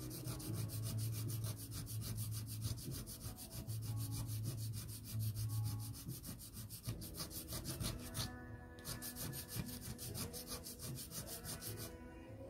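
Wooden pastel pencil tip rubbed back and forth on sandpaper to sharpen its point, in quick rhythmic scratching strokes, several a second. The strokes break off briefly about eight seconds in and stop shortly before the end.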